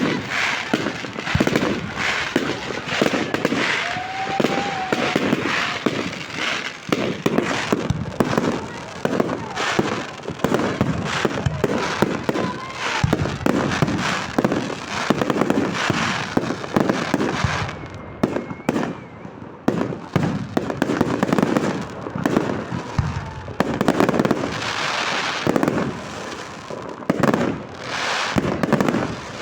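Fireworks display: a continuous barrage of fireworks bursting, with rapid overlapping bangs and crackle that thin out briefly about two-thirds of the way through before picking up again.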